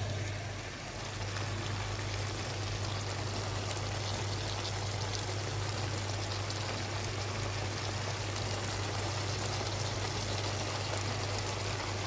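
Eggplant, long beans and tomato sizzling steadily in sauce in a frying pan, with a low steady hum underneath.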